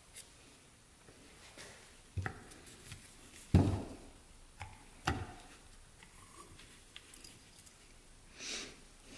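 Small metal carburetor parts handled by gloved hands while the vacuum diaphragm and slide are lifted out: a few scattered clicks and knocks, the loudest about three and a half seconds in, with a brief rustle near the end.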